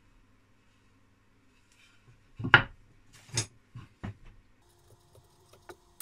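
A cherry board handled on a wooden workbench: several knocks as it is set down and shifted, the loudest about two and a half seconds in, then a few light ticks and clicks as it is marked with a pen.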